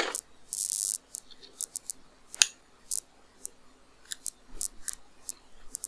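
Scattered sharp clicks of a computer keyboard and mouse being worked, with a brief rustling noise about half a second in.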